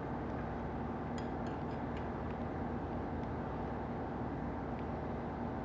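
A steady low hum and noise, with a few faint light clicks between about one and two and a half seconds in.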